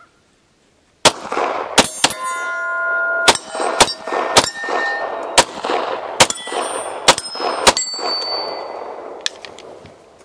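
CZ P10C 9mm pistol firing about ten shots of hand-loaded ammunition at an uneven pace, starting about a second in. Brief metallic ringing follows several of the shots.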